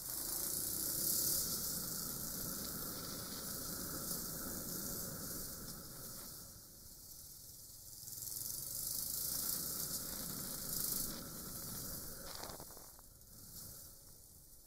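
Wind rushing over a dash camera's microphone on a moving motorcycle, with road noise beneath: a hiss with no clear engine note that swells and eases several times.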